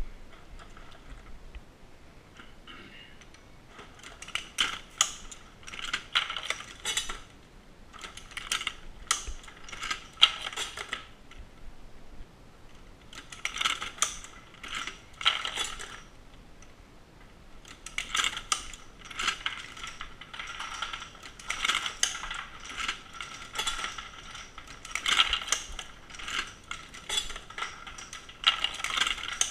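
Dillon SL900 shotshell reloading press being worked: bursts of metallic clicking and clattering, each lasting a few seconds, with short pauses between.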